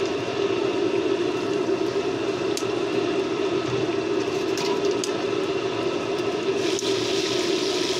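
Bread pakoras deep-frying in a large iron kadhai of hot oil, sizzling and bubbling over a steady low mechanical hum. The sizzle turns brighter and louder near the end.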